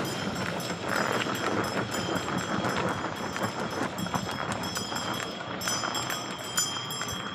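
A bullock cart rolling along a dirt road: a steady rumble from the loaded cart and its wheels, with many small knocks and rattles.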